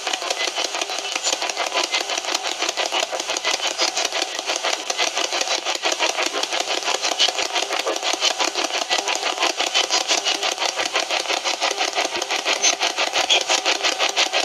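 P-SB11 dual-sweep spirit box scanning radio frequencies: a steady, rapidly chopped radio static, pulsing many times a second as it jumps from station to station.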